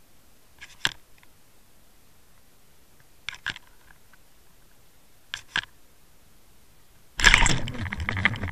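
Underwater sound through an action camera's housing on a pike trolling rig: three short sharp clicks a couple of seconds apart, then about seven seconds in a sudden loud rush of churning water as the rig is jerked through the water.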